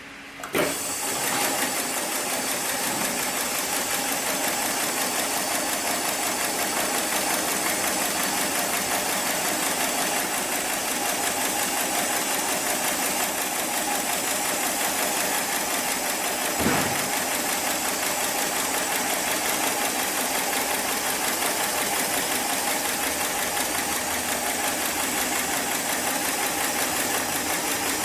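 Heavy-duty programmable pattern sewing machine for webbing slings running a stitch cycle. It starts with a sharp clunk about half a second in, then settles into a steady, rapid mechanical clatter of stitching. A single clunk comes a little past halfway.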